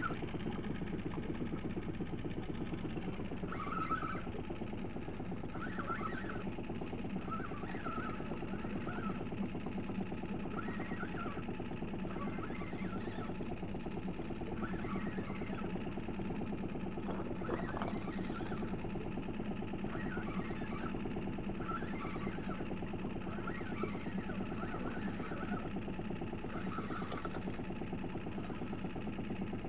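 Boat motor running steadily, with a short higher-pitched chirp every two seconds or so.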